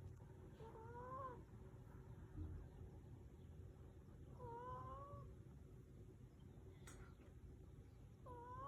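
Yorkshire terrier snoring in its sleep: a faint, wavering nasal whistle with each breath, three times, about four seconds apart. A single brief click falls between the second and third.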